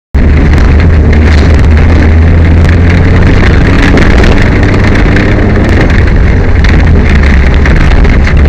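Peugeot 205 rally car driving at speed, heard from inside the cabin: loud, distorted engine and road noise with a deep drone, starting abruptly a moment in.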